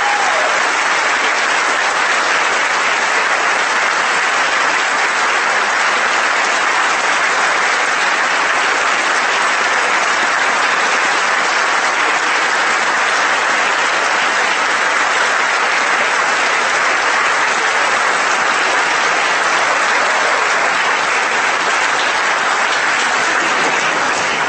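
Audience applauding loudly and steadily for a prize winner, dying away right at the end.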